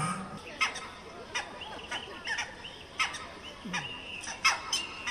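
Birds calling: a run of short chirps and squawks, one after another every half second or so.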